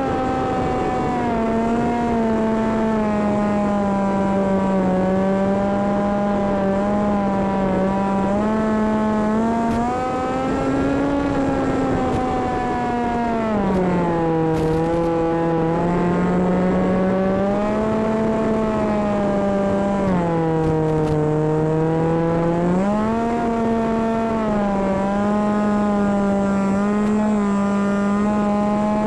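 Small electric brushless motor (stock 1806, 2400 kV) on a flying wing, spinning a three-blade prop in flight: a continuous motor-and-prop drone that dips and rises in pitch as the throttle changes, with a steady hiss beneath it.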